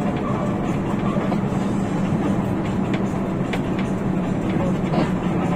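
Rear-mounted diesel engine of a Hino RK8 bus running steadily while under way: a low drone over road noise, with short rattles from the body now and then.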